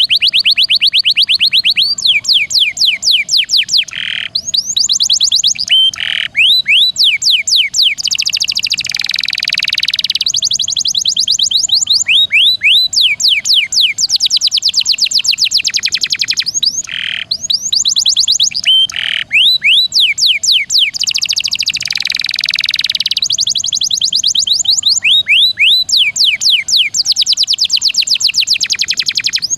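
Domestic canary singing non-stop in fast rolling trills, each made of many quick falling notes, broken now and then by short held notes and buzzy phrases.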